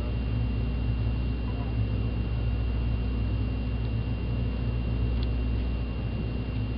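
Boat engine running steadily: a low, even hum with a thin, steady high whine above it.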